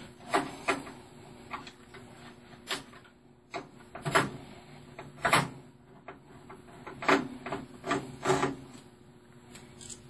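Irregular clicks and knocks of plastic cable connectors and parts being handled inside the metal chassis of a Dell OptiPlex 380 desktop, about nine in all.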